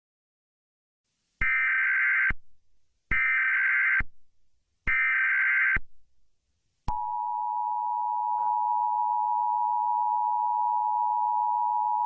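Emergency Alert System alert tones: three short bursts of SAME header data tones, each a little under a second, then the steady two-tone EAS attention signal starting about seven seconds in.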